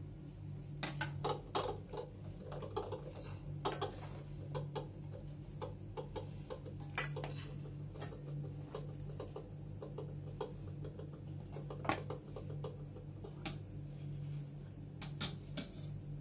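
Spoon and wooden spatula scraping and tapping on a steel pan and plate while breaking up cooked semolina dough: irregular light clicks and knocks, with a sharper knock about seven seconds in and another near twelve seconds. A steady low hum runs underneath.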